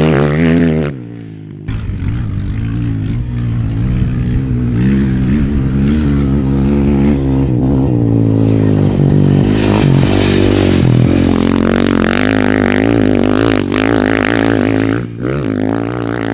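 Dirt bike engine running under throttle while riding, its pitch rising and falling, with a short dip about a second in as the throttle closes.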